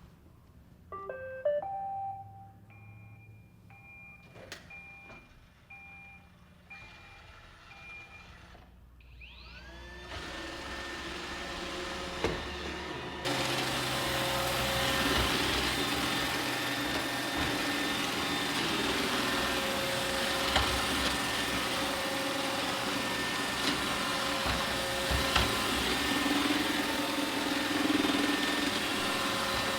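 iRobot Roomba 880 robot vacuum: a quick rising run of electronic tones and a few repeated beeps. Then its motors spin up with a rising whine into a steady vacuuming run that grows louder about 13 seconds in, with a few knocks as it cleans.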